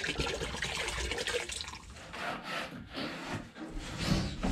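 Water pouring from a plastic jug into a bucket, followed by a rag wiping wood in quick strokes, about two a second.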